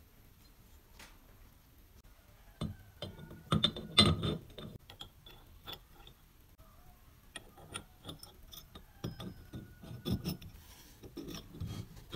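Steel parts of a hand-cranked meat grinder clinking and clicking as the cross-shaped cutting knife is slid onto the feed screw and the perforated grinding plate is set into the barrel, with brief metallic ringing. After a quiet start come scattered clinks, loudest about four seconds in.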